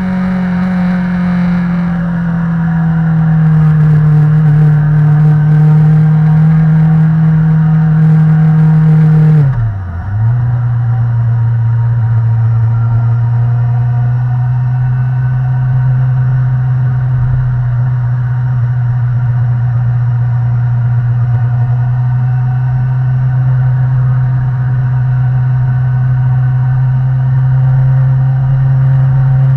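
Sport motorcycle engine heard from on the bike, running at steady revs in second gear. About ten seconds in, the rider shifts up: the revs drop sharply and briefly, then settle at a lower steady note in third gear.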